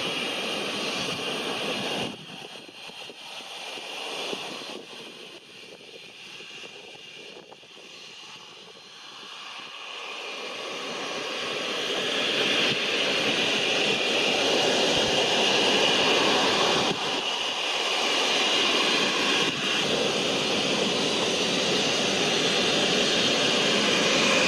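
Boeing 787-8's Rolls-Royce Trent 1000 turbofans running as the airliner taxis past, a steady jet rush and whine. The sound drops suddenly about two seconds in, then builds from about ten seconds in to a louder, steady level.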